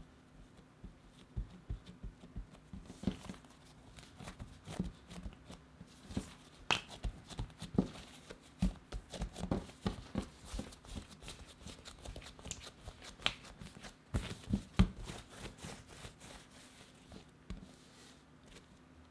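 Hands pressing, folding and rolling soft bread dough with cheese cubes on a work surface: a run of irregular soft taps, slaps and sticky handling noises, the loudest a pair of slaps about three-quarters of the way through, stopping shortly before the end.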